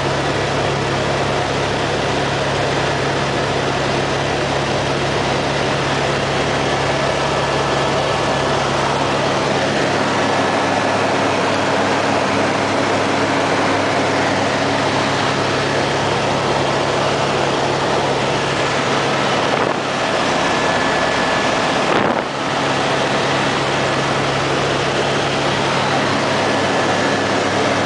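Helicopter engine and rotor noise heard from inside the cabin in flight: a loud, steady din with a few held tones, and one brief knock late on.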